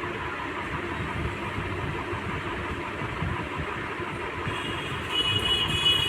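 Steady rumbling background noise, with a brief thin high tone near the end.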